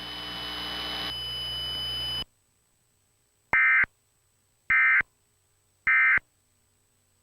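Emergency Alert System end-of-message data tones from a Trilithic EASyPLUS: three short, identical warbling bursts about a second apart, marking the end of the blizzard-warning alert. Before them, a swelling hiss with faint steady tones cuts off sharply about two seconds in.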